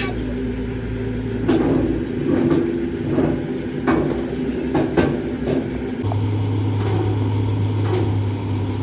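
An engine running steadily, its low hum changing pitch about six seconds in, with half a dozen sharp knocks, such as tools striking metal, in the first two-thirds.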